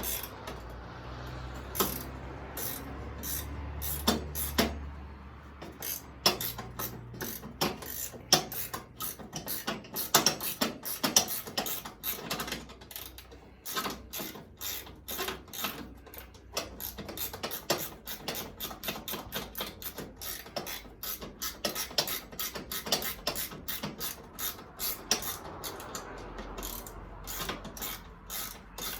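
Socket ratchet wrench clicking in short runs of strokes as bolts are worked loose, with sharp metal clicks throughout.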